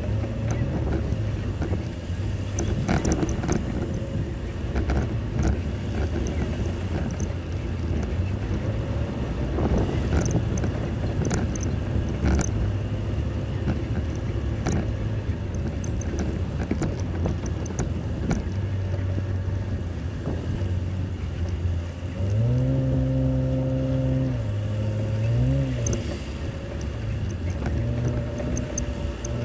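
Jeep engine running at low revs while crawling over a rough off-road trail, with frequent knocks and rattles from the vehicle bouncing over rocks. About two-thirds of the way through the engine revs up and holds a higher pitch, easing off briefly twice.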